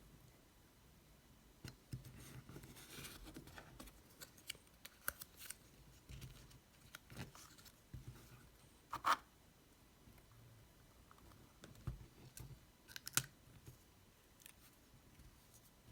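Thin card being cut by hand for a paper model: a scattered series of small snips and scrapes, with sharper snips about nine and thirteen seconds in.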